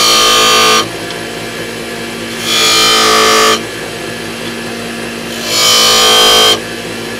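Wood lathe running steadily while a skew chisel is pressed into the spinning wooden handle blank three times. Each cut lasts about a second and is loud, with a ringing, pitched edge, and the cuts come about three seconds apart. They groove shallow lines into the handle.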